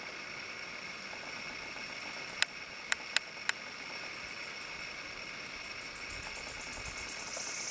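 Quiet outdoor background: a steady high hiss, with four sharp clicks close together about two and a half to three and a half seconds in.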